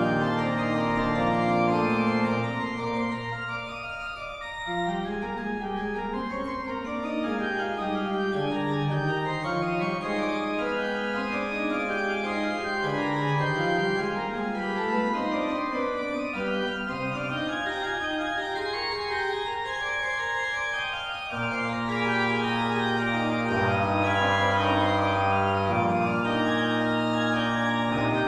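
Organ music: held chords over a sustained low bass note, giving way after a few seconds to moving lines that rise and fall, then held chords with a deep bass note return about two thirds of the way through.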